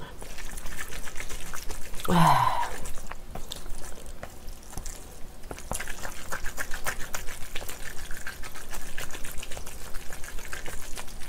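Chopsticks stirring sauce-coated black bean instant noodles in a paper bowl: a steady run of wet, sticky squelches and quick clicks, busier in the second half. A brief vocal sound about two seconds in.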